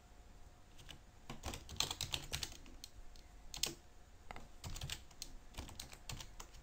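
Computer keyboard being typed on: faint short runs of keystrokes, with one sharper key press a little past halfway as a shell command is entered.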